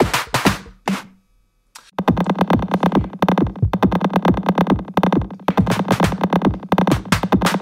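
Electronic drum voices from a Eurorack modular synthesizer: a few sparse hits, a short silence about a second in, then a dense, fast run of echoing percussion strikes over a steady low tone.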